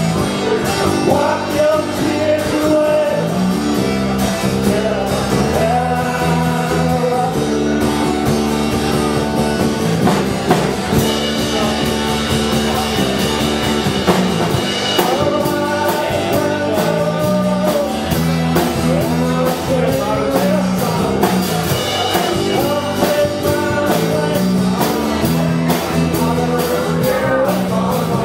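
Live rock band playing a song: acoustic guitar, electric guitar and drum kit, with singing.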